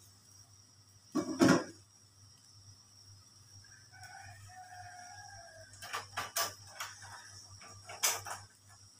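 A rooster crows faintly about four seconds in, one drawn-out call. A loud thump comes about a second and a half in, and a few sharp knocks follow later.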